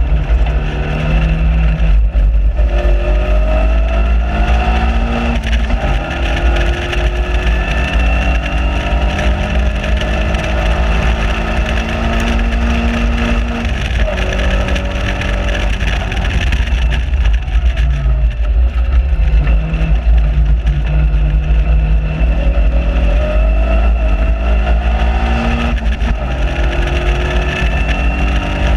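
On-board sound of a Caterham Seven's engine under hard track driving, its pitch climbing through the revs and dropping back several times as it shifts gear and slows for corners. A strong low rumble of wind on the microphone in the open cockpit runs underneath.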